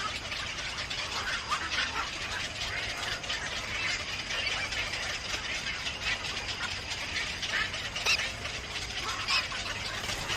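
Small birds chirping in short, scattered calls over a steady background hiss, with the two loudest chirps about eight and nine seconds in.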